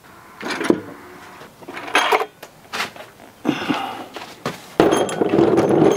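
Cylinder head of a Honda K20 engine being worked loose and lifted off the block: a scattering of separate metal knocks and clunks. Near the end comes a louder, steady stretch of noise lasting about a second and a half.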